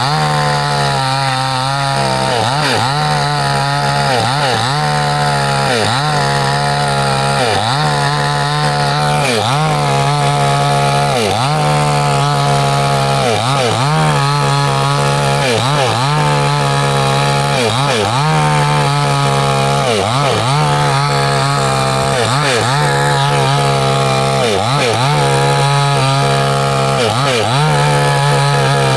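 New West 628 two-stroke chainsaw at full throttle cutting through a weathered hardwood log. The engine note dips and recovers about once a second as the chain bites.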